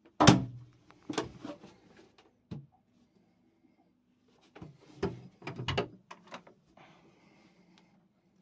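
A series of short knocks and clicks from a boat cabin's door and fittings being handled, the loudest about a quarter second in and another cluster around five to six seconds.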